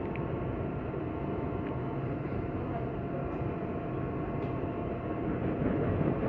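Interior running noise of a CPTM Series 8500 electric multiple-unit train: a steady rumble of the moving car with several steady whining tones from the traction equipment above it.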